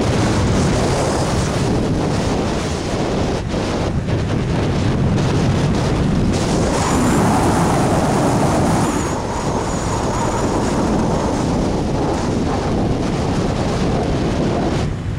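Steady wind rushing and buffeting on the microphone of a camera mounted on a hang glider's wing as it glides low in flight. A faint thin high whistle comes in for a few seconds midway.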